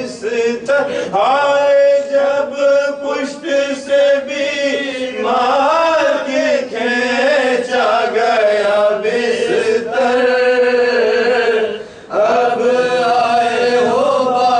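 A man chanting an Urdu marsia, a mourning elegy, without accompaniment, in slow, long-held, wavering notes. There is a brief pause for breath about twelve seconds in.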